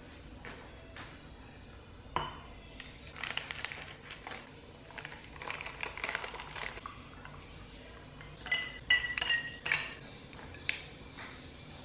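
An iced instant chocolate drink being made in a glass tumbler. A sachet is torn and its powder poured in with a rustle, then ice cubes clink into the glass with a ringing ping, among a few sharp knocks on the tile.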